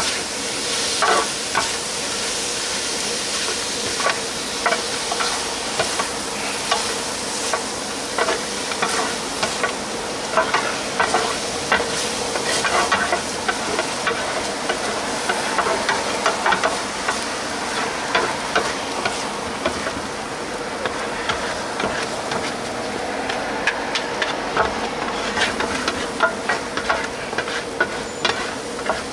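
Sundae bokkeum (Korean blood sausage and pork offal) sizzling in a hot pan as it is stir-fried, with a spatula clicking and scraping against the metal many times over. A steady hum runs underneath.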